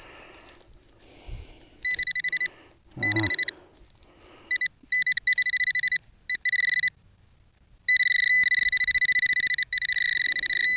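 Metal detecting pinpointer probe sounding its alert, a steady high beep pulsing rapidly. It comes in short bursts, then sounds almost without a break over the last few seconds as it closes in on a small metal target in the dug soil.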